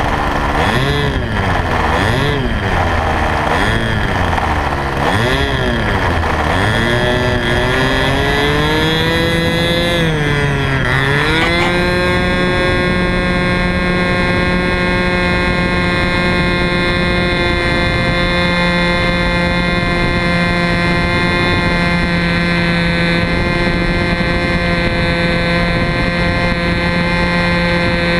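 A model plane's two-stroke glow engine, heard close up from a camera under the plane. For the first several seconds the revs rise and fall about once a second. They then climb, dip briefly about ten seconds in, and settle into a steady high-pitched run as the plane takes off and climbs.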